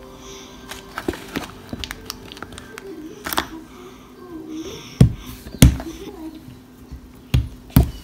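Small clicks and taps of a plastic tub of toy dough and its foil wrapper being handled on a counter, with several heavy thumps in the second half.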